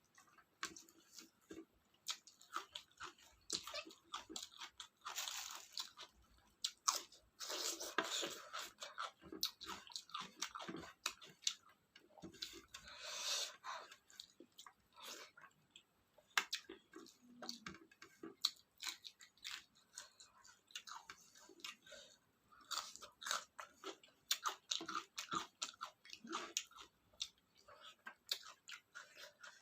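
Close-up mouth sounds of a person eating rice and curry with salad: wet chewing and lip smacking with crisp crunches, in an irregular stream of clicks.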